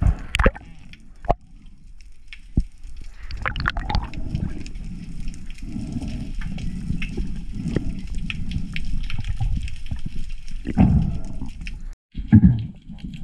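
Muffled underwater sound from a camera in a waterproof housing: water sloshing and gurgling with a low rumble, broken by a few sharp knocks early on. The sound drops out briefly about twelve seconds in.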